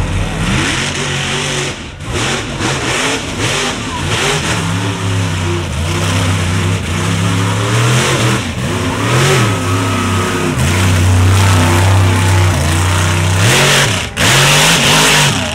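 Lifted Ford Super Duty mud truck's engine revving up and down again and again as it drives through deep mud on big tires. Near the end, a loud rush of noise as the tires churn and spray mud.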